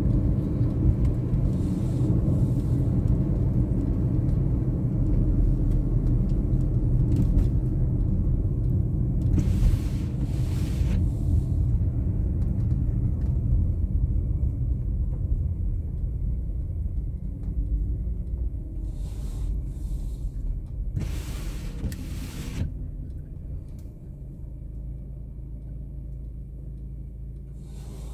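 Car's engine and tyre rumble heard from inside the car while it drives on snowy roads, with two brief hissing sweeps. Near the end the rumble falls away to a quieter, steady low hum.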